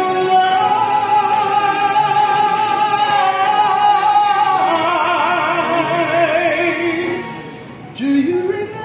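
A woman singing live, holding long notes with strong vibrato that grows wider in the middle, then a short upward slide near the end.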